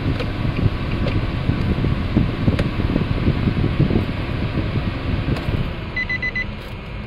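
2018 Nissan Latio's 1.2-litre three-cylinder engine idling, then switched off about five and a half seconds in, its running note dropping away. Just after, a quick run of about four high electronic beeps sounds from the car.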